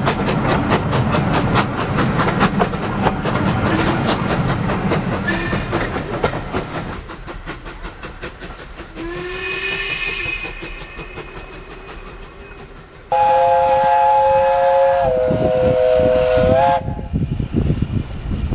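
Steam locomotive chuffing with rapid exhaust beats, then a faint whistle, then a loud steam whistle. The loud whistle sounds a chord of several tones over a steam hiss for about four seconds, dips slightly in pitch partway through, and cuts off sharply.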